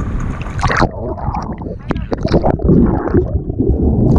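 Sea water splashing, then muffled gurgling and sloshing with irregular knocks as the microphone goes under the surface about a second in.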